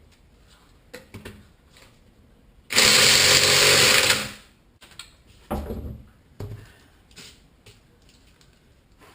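A power tool runs in one steady burst of about a second and a half, starting a little under three seconds in. A few clunks follow.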